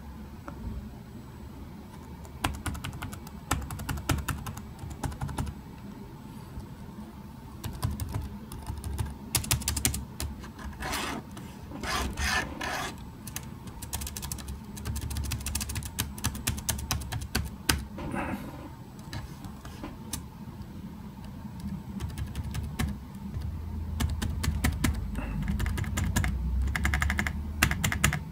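Keys of an EPSON Direct Endeavor NY40S laptop keyboard pressed and tapped one after another: light plastic keystroke clicks, in quick runs and single taps, going from the arrow keys to the space bar and then the Windows key. The arrow keys and the Windows key click slightly differently from the rest, with a rattly feel, while the space bar sounds normal.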